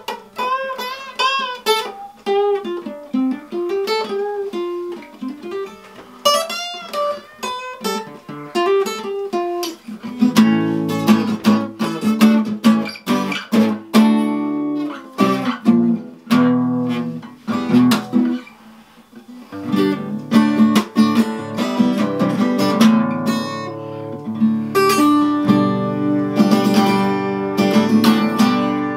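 Acoustic guitar being played: a single-note line with notes bending up and down, then strummed chords from about ten seconds in.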